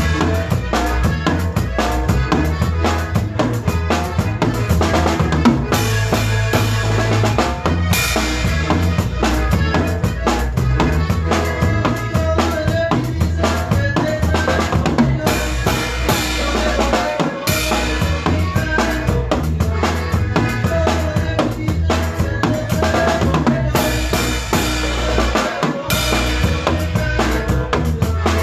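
Live band playing a cumbia, the drum kit's kick, snare and rimshots keeping a steady dance beat over a bass line.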